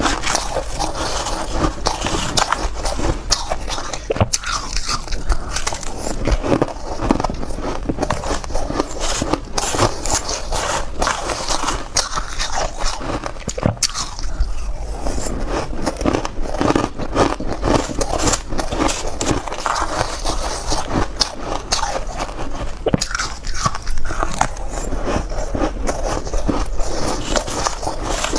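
Close-miked biting and crunching of soft white ice chunks, dense irregular crackles and crunches with chewing.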